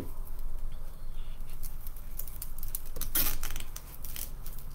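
Deco mesh rustling as it is handled, with light clicks as scissors are picked up and a louder rasping rustle about three seconds in as the scissors go to the mesh.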